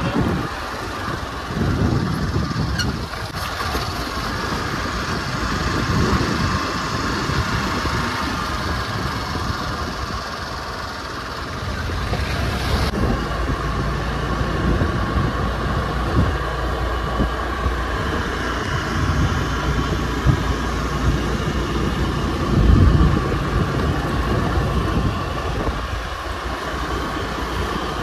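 Car driving along a road: steady engine and tyre rumble heard from inside the car, with a brief louder rumble near the end.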